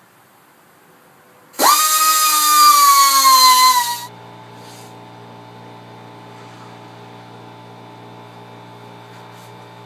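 Dremel rotary tool whining as it grinds out a wheel-stud hole in a steel hub. It starts about one and a half seconds in, its pitch jumps up and then sags under load, and it stops after about two and a half seconds. A steady low electrical hum follows.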